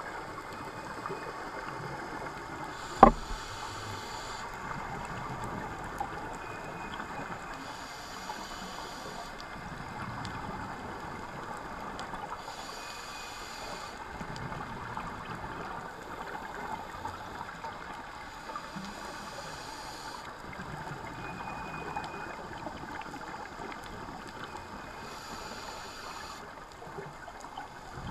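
Scuba diver's regulator breathing heard through an underwater camera housing: a steady muffled hiss with a burst of exhaled bubbles about every five to six seconds. One sharp click about three seconds in.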